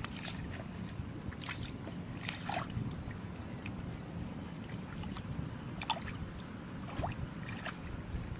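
Shallow muddy water sloshing and splashing as someone wades and groped through it by hand: several short, separate splashes over a steady low rumble.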